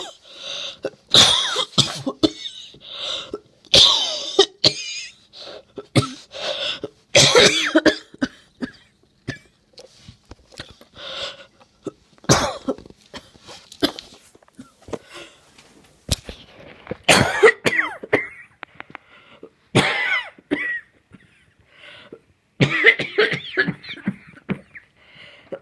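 A person's wheezy cough: many hard coughs in short fits of several at a time, coming every few seconds, with a little throat clearing among them. A persistent, wheezy chesty cough.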